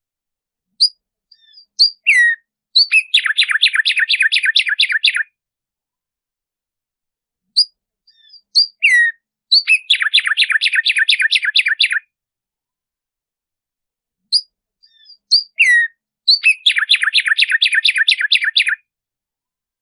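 Black-striped sparrow (tumba yegua) singing three songs. Each song opens with a few sharp, spaced notes, one of them sliding down, then runs into a rapid series of notes about two seconds long.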